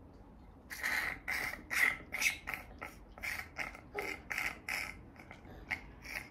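Rinse water being suctioned out of a child's mouth during tooth cleaning: a run of short wet sucking slurps, two or three a second, starting about a second in and fading near the end.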